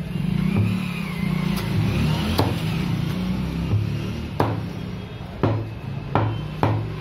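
A butcher's knife knocking against a wooden chopping block while a skinned chicken is cut into pieces: about six sharp knocks, sparse at first and coming faster near the end, over a steady low rumble.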